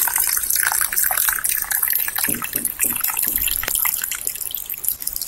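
Water running from a dispenser tap into a small plastic cup, filling it with a gurgling trickle that tapers off near the end.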